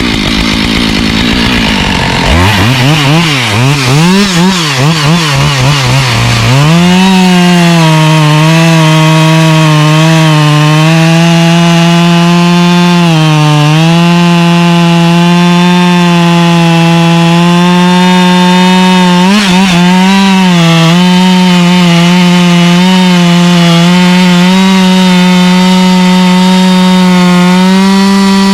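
Husqvarna professional two-stroke chainsaw revved up and down a few times, then held at full throttle cutting through wood for about twenty seconds, with two brief dips in engine speed.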